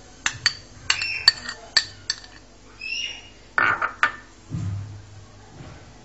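Kitchen utensils and a bowl clinking and knocking: a string of sharp clinks in the first half, then a louder, noisier clatter a little past the middle.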